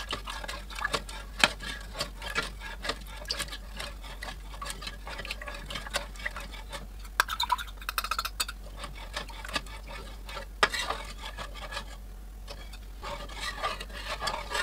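A metal spoon stirring and scraping in a pressure-cooker pot of nihari as cornflour slurry is poured in, with irregular clinks against the pot's sides and bottom. The stirring keeps the thickening stew from sticking and burning at the bottom. It comes in busier spells around the middle and near the end, with a short lull between.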